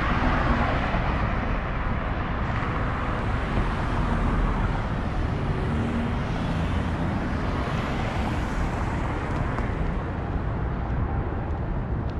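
Road traffic on a wide multi-lane city street: a steady noise of passing cars, with a low rumble.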